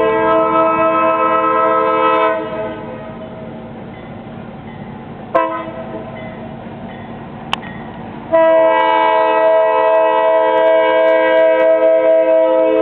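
A diesel freight locomotive's multi-chime air horn blowing a chord of several notes for a grade crossing. A long blast cuts off about two seconds in, a short blast comes near the middle, and another long blast starts about two-thirds of the way through, all over the low rumble of the locomotive.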